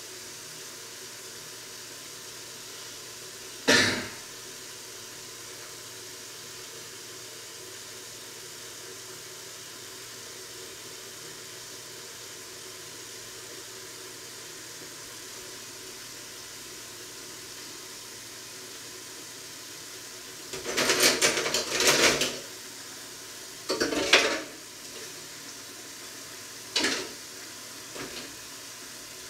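Kitchen dishes and utensils clattering over a steady background hiss: a single sharp knock a few seconds in, then a run of clinks and clatter past the two-thirds mark and a few lighter knocks near the end.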